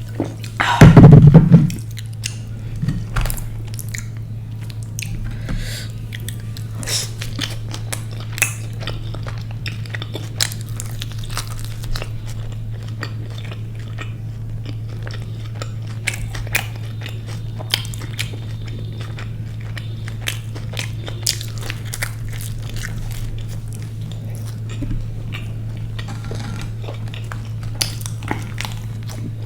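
Close-miked chewing and biting of food, with scattered sharp crunches and mouth clicks. A loud, heavy thump about a second in. A steady low hum underneath.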